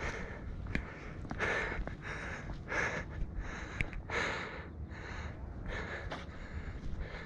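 A person breathing hard after a steep climb: rhythmic, noisy breaths about one every second and a half, with a few sharp clicks between them.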